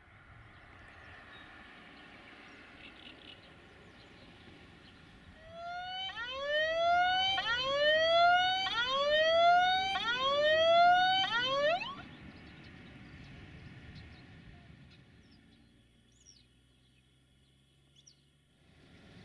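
Siren-like electronic tone sounding as a run of about five rising whoops, roughly 1.3 seconds apart, for some six seconds. Faint outdoor background before and after.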